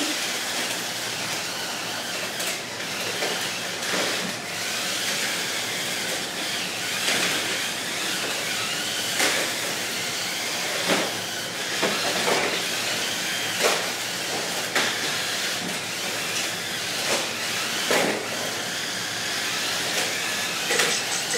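Small electric motors of Lego combat robots whining, their pitch rising and falling as they drive, with sharp plastic clacks and knocks every second or two as the robots shove into each other.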